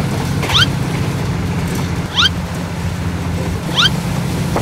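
Passenger train running, a steady low drone, with a short rising chirp repeated three times about every second and a half.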